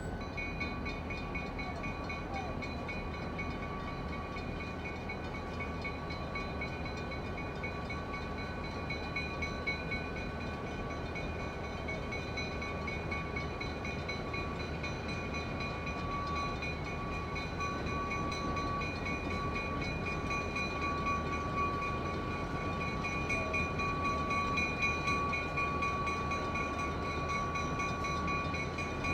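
Train passing: a steady rumble of rolling cars with constant high ringing tones over it, growing a little louder in the last third.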